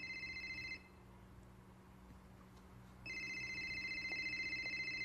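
Telephone ringing with a fast trilling ring in a ring-and-pause cadence: one ring stops about a second in, and after a pause of about two seconds the next ring starts about three seconds in.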